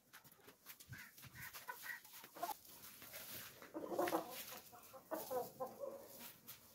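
Chickens clucking in short calls, the loudest about four seconds in and again near five seconds, over the faint crackle of dry straw and a plastic mesh potato sack being rummaged through.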